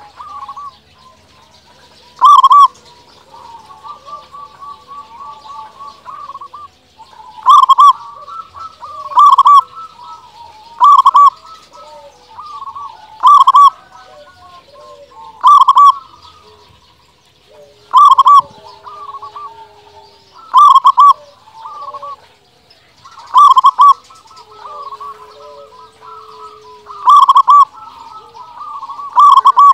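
Zebra dove (local perkutut) cooing: about a dozen loud, short calls spaced roughly two seconds apart, with softer rolling coos and chirps from other birds between them.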